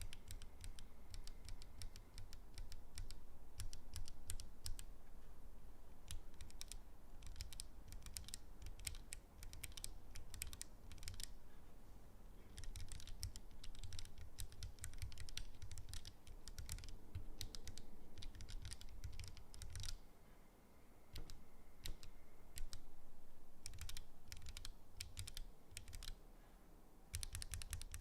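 Typing on a Keychron Q2 mechanical keyboard fitted with Gateron Box CJ linear switches: a steady stream of keystroke clacks, pausing briefly a few times.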